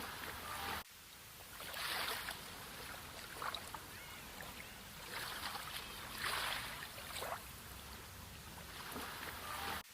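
Small sea waves washing in and drawing back. Each wave is a hissing surge that swells and fades every one to three seconds over a steady background wash.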